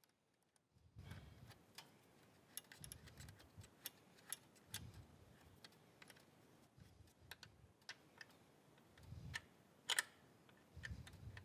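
Faint, irregular clicks and soft knocks of hand work as a scooter's coolant reservoir cap and cover are fastened back on.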